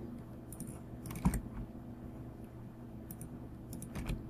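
A handful of scattered clicks from a computer keyboard and mouse, keystrokes and mouse-wheel scrolling, with the loudest about a second in. A low steady hum sits underneath.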